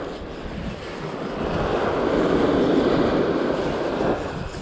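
Small waves washing up the beach: a swell of surf noise that builds from about a second in and falls away near the end, over the low rumble of wind on the microphone.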